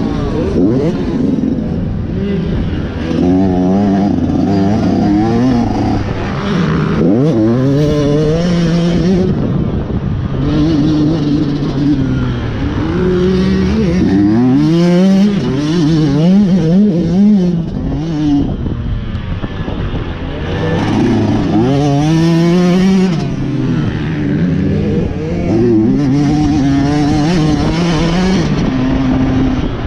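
Yamaha motocross bike's engine revving hard and easing off again and again, its pitch climbing with each burst of throttle and dropping as the rider shifts or rolls off.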